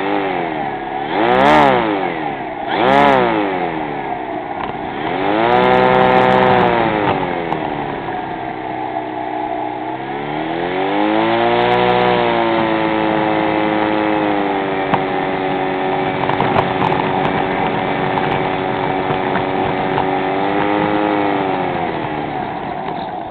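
Small model-airplane engine revving up and down as the model taxis on the runway: two short blips, two longer swells, then a steady high-speed run that drops away near the end.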